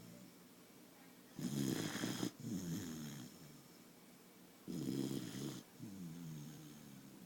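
A sleeping dog snoring: two loud snores about three seconds apart, each followed by a softer breath out with a whistling, wavering tone.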